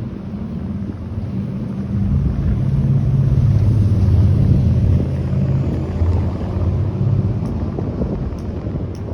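Strong storm wind gusting over the microphone: a loud, low rumbling wind noise that swells for a few seconds in the middle.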